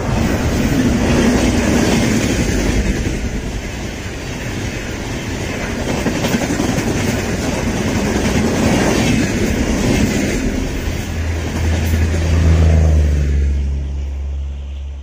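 Passenger train passing close and fast behind a WAP-4 electric locomotive: a loud rush of wheels on rail, with the coaches' wheels clattering over the rail joints. The noise fades over the last couple of seconds as the last coach goes by.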